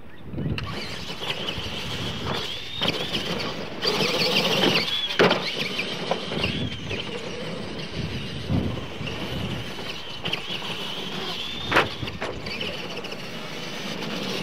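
Radio-controlled Clod-style monster trucks racing on dirt: their electric drivetrains give a high, wavering whine that rises and falls with the throttle from about half a second in. Several sharp knocks stand out above the whine.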